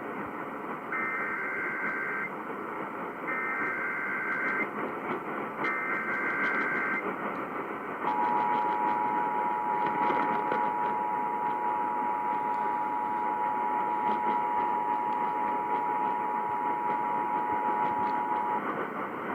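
Emergency Alert System test signal over radio hiss: three short screeching digital header tones, about a second apart, then the two-tone EAS attention signal, a steady dual-tone buzz held for about ten seconds before it cuts off.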